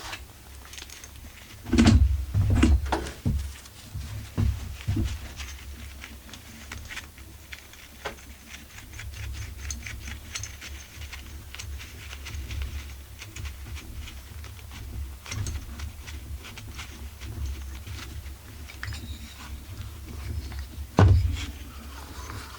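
Scattered clicks and knocks of metal tools and chainsaw engine parts being handled during assembly, with a group of louder knocks about two seconds in and another near the end, over a low steady hum.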